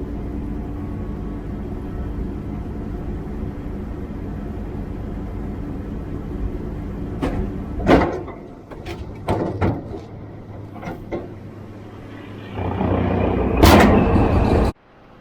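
Tractor engine running steadily with the baler, then several sharp knocks and clatters about halfway through and a louder rushing burst near the end that cuts off suddenly.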